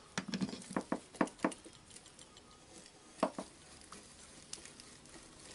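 Short metallic clicks and taps of slip-joint pliers gripping and working at the rotary hammer's steel cylinder, which is stuck in the gearbox housing: a quick run of about half a dozen in the first second and a half, then two more about three seconds in.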